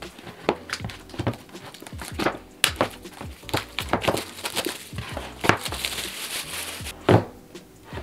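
Clear plastic shrink-wrap being peeled and torn off a cardboard iPad box, crinkling, with fingers tapping and scraping the box. A sharp knock comes about seven seconds in as the box is handled.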